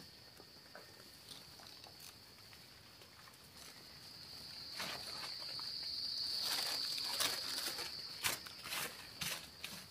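An insect's steady, high-pitched buzz that swells past the middle and fades near the end, with scattered soft rustles and clicks from a paper bag being handled and soil being worked.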